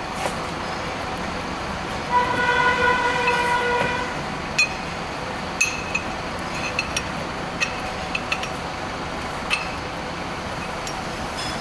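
A car horn sounds once for about two seconds over steady workshop background noise. It is followed by a scattered series of light, sharp metallic clicks and taps, from rear drum brake parts being handled and fitted.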